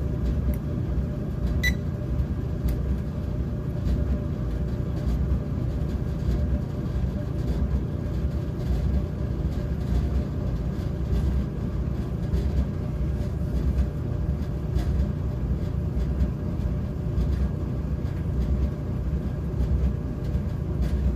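Electric clothes dryer running with its heating element on: a steady low rumble from the drum and blower, with a faint steady hum over it.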